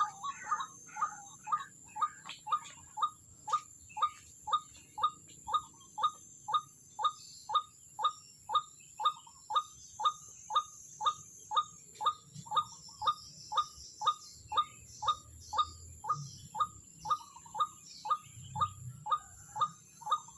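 White-breasted waterhen calling: a steady, evenly spaced series of short repeated notes, about two a second.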